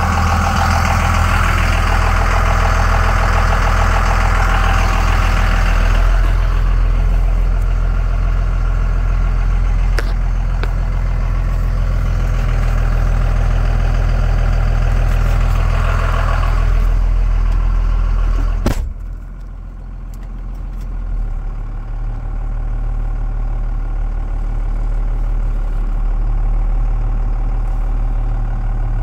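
1998 Dodge Ram pickup's engine idling steadily. About two-thirds of the way through there is a sharp clunk, after which the idle sounds duller and quieter.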